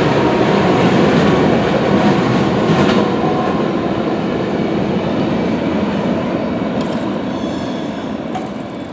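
Union Pacific freight train's wheels rolling over the rails with a clickety-clack, the rumble fading away from about three seconds in as the train moves off.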